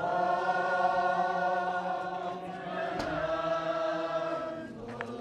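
A choir singing long held notes, moving to a new chord about halfway through and again near the end.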